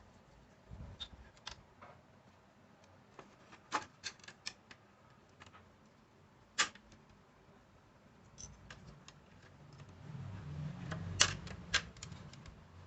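Irregular small clicks and taps of tools and small parts being handled during radio repair work, the sharpest snaps a little under 4 s in, at about 6.5 s and just after 11 s, with a low rumble from about 10 to 12 s.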